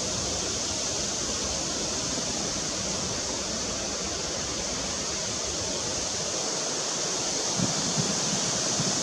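Steady, even rushing noise with no distinct events, and a couple of soft low thumps near the end.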